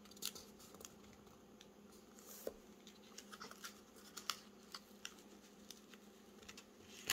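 Faint rustling and light scattered clicks as a clear plastic flower sticker is handled and pressed down onto a thin Bible page, over a faint steady hum.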